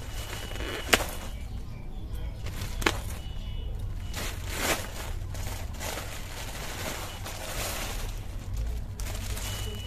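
Plastic courier mailer being torn and pulled open by hand: rustling, crinkling plastic with a few sharp snaps, the loudest about one second and three seconds in. Near the end a packet in clear plastic wrap rustles as it is pulled out.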